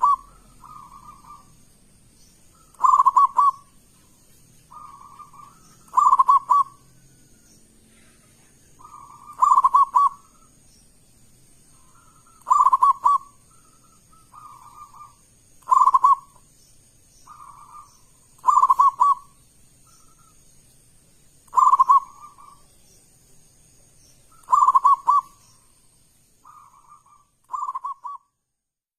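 Zebra dove (perkutut) cooing loudly, a full coo phrase about every three seconds, with shorter, quieter coos in between.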